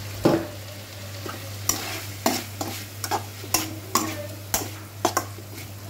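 Metal spatula scraping and knocking against a metal kadai as chicken pieces are stirred, in irregular strokes over a steady sizzle of frying in oil, the cooking liquid absorbed.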